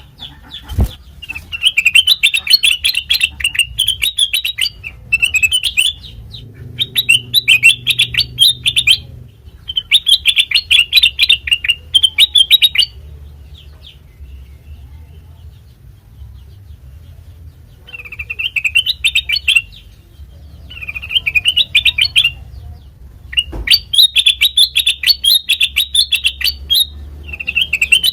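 Kutilang mas bulbul singing in repeated bursts of rapid chattering notes, each burst one to three seconds long with short pauses between. Two brief low thumps, about a second in and near the end.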